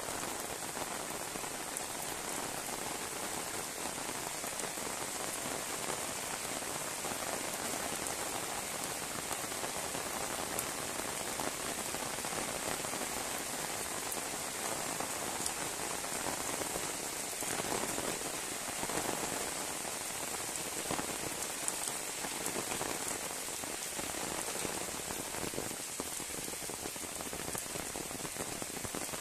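Heavy rain falling steadily, pattering on paved ground and leaves.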